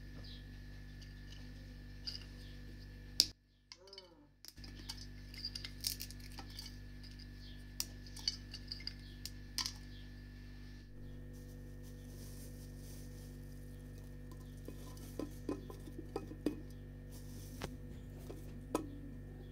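Small clinks and taps of glass as dried spices, cardamom pods and cinnamon bark, are picked from a glass bowl and dropped by hand into a glass teapot. The sharpest click comes about three seconds in. A steady low hum runs underneath.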